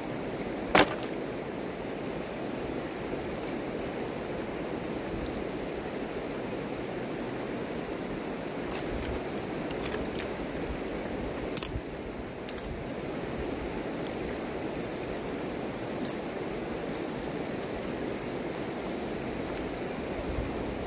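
Shallow river rushing steadily over stones. A few sharp wooden knocks of driftwood sticks being stood into a fire pile are heard, the loudest about a second in and three more later.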